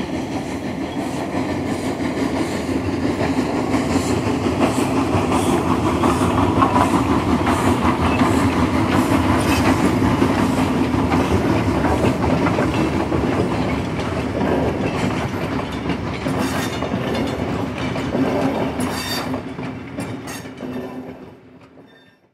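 O-gauge model steam locomotive and train running on three-rail track: a steady rolling rumble with clickety-clack, fading out near the end.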